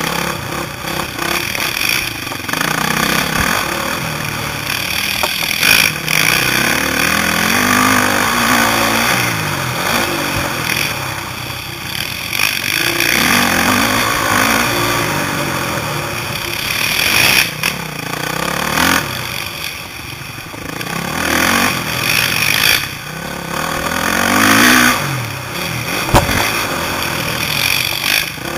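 Four-stroke 450cc motocross bike engines riding a dirt track, the revs rising and falling again and again as the throttle is opened and shut.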